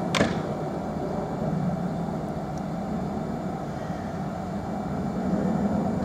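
Class 66 diesel-electric freight locomotive approaching, its engine giving a steady low rumble. A brief sharp swish, falling in pitch, cuts in just after the start.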